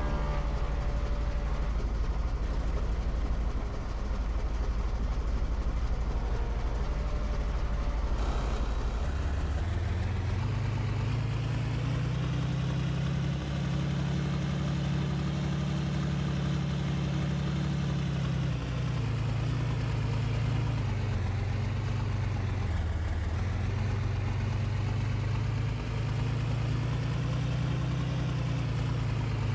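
A motor running continuously with a low, steady drone. About nine seconds in its pitch steps up, then slowly rises and falls.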